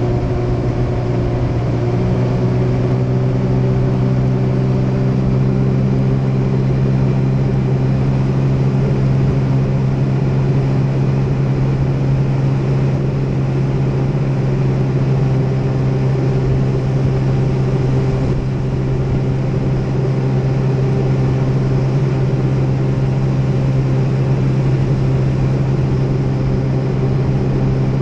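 Jet ski engine running steadily while under way, a constant drone whose note shifts slightly about two seconds in.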